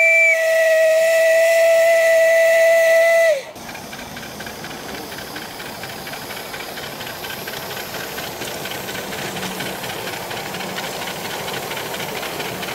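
Steam whistle on a 5-inch gauge live-steam model locomotive sounding one long steady blast, which drops slightly in pitch and cuts off about three and a half seconds in. After it comes the steady hiss of the small steam locomotives running.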